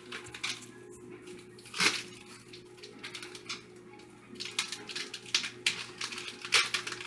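Kitchen handling noises: scattered light clicks, rustles and clatter as food packaging and kitchen items are handled, with a louder rustle about two seconds in and a run of quick small clicks in the second half, over a faint steady hum.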